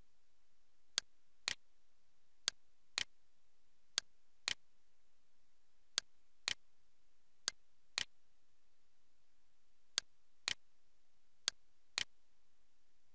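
Computer mouse button clicking: seven pairs of sharp clicks, each pair half a second apart, over faint steady hiss.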